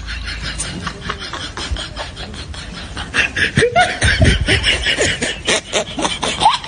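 A man laughing in quick, repeated snickers, louder and denser from about halfway through.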